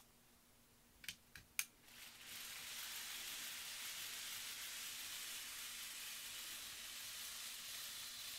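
A Bachmann N scale steam locomotive pulling its freight cars around the track oval. A few light clicks come about a second in, and from about two seconds on the small train runs with a steady high hiss of motor and wheels on the rails.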